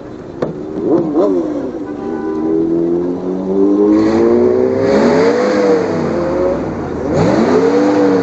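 Car engine revving: a long climb in pitch, then revved up and let back down twice. A sharp click comes about half a second in.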